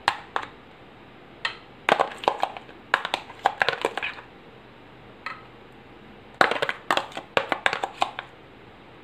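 Metal spoon scraping and clicking against dishes while spreading thick tomato sauce, in short irregular bursts with quiet gaps between.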